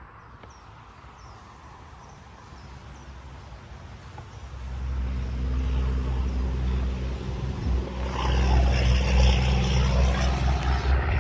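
A motor vehicle's engine rumble rises suddenly about four and a half seconds in and keeps a steady low hum, with a broad hiss joining near the end.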